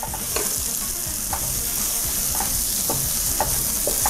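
Ground spice paste with sliced torch ginger, lemongrass and lime leaves sizzling in oil in a nonstick wok. A wooden spatula scrapes and stirs through it in repeated short strokes, about every half second to a second.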